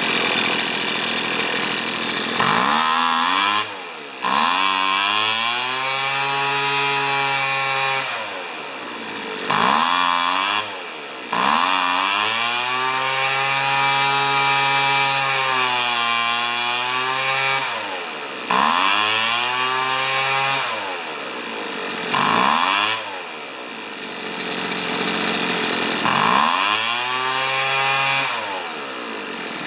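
Weed Eater leaf blower's small two-stroke engine running and being revved, its speed climbing and dropping back again and again every few seconds. The engine is being tried out after its carburetor's low- and high-speed mixture screws were adjusted.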